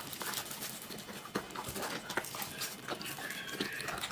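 Golden retriever's small noises among scattered soft clicks and rustles, with a thin high tone about three seconds in.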